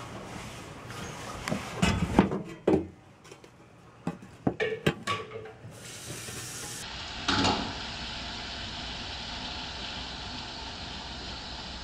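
Knocks and clicks of handling at a steam-bath generator's metal cabinet, in two short clusters, then a single thump about seven seconds in, followed by a steady hiss.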